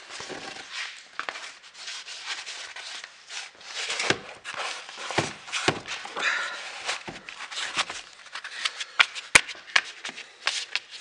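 Rustling and rubbing of a battery cover being worked down over a car battery's plastic case, with scattered knocks against the case and bench and a sharp click about nine seconds in.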